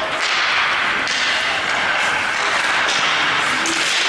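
Inline hockey play: a steady hiss of skate wheels on the rink floor with background voices, and a few sharp clacks of sticks on the puck, one about a second in and two near the end.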